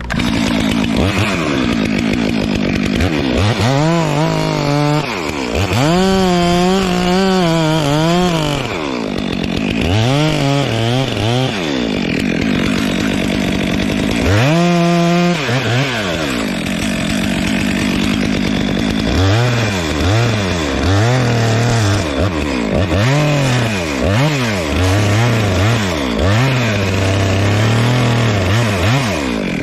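Chainsaw cutting the face notch into a dead tree's trunk, the engine revving up and dropping back again and again as the chain bites into the wood and is eased off. Over the last third the pitch sits lower and wavers quickly as the saw works under load.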